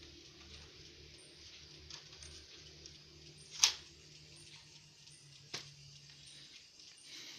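A few sharp clicks from small laptop parts being handled during disassembly, the loudest about halfway through, over a steady faint hiss and low hum.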